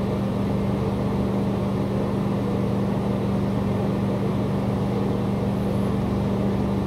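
A loud, steady low mechanical hum with a constant tone, unchanging throughout.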